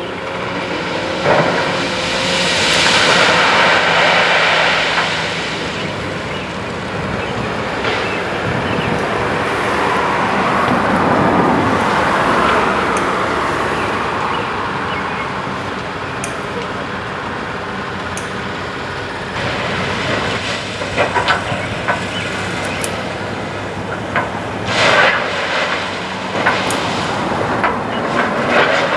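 Side-dump ballast gondola tipping and emptying its load of crushed-rock ballast: a loud, continuous rush of rock pouring out of the car, swelling and easing twice. In the second half come scattered knocks and clatters of stone.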